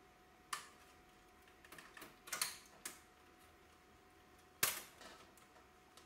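Sharp clicks and knocks of plastic and metal parts as the cassette mechanism of a Philips DCC900 deck is handled inside its open chassis: one click about half a second in, a cluster of clicks around two to three seconds in, and the loudest snap a little after four and a half seconds.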